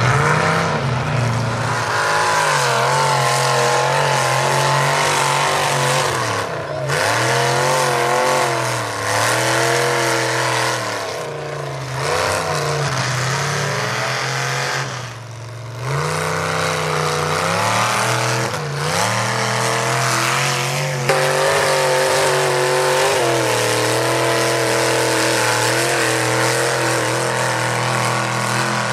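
Ford mud truck's engine revving hard as it churns through a mud bog, the revs climbing and falling again and again and dropping off briefly several times, then held high near the end.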